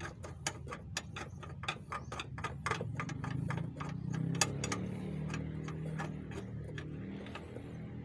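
A quick run of small metallic clicks as bolts are threaded and turned by hand into a rear subframe brace, fast at first and thinning out after a few seconds, over a steady low hum.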